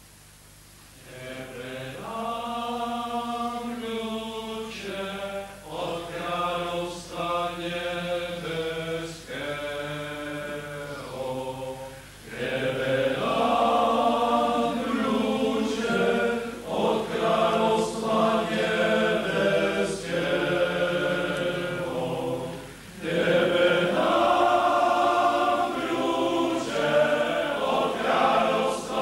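Group of priests singing a hymn in chorus. It starts about a second in, after a brief pause, grows louder about twelve seconds in, and breaks briefly between phrases.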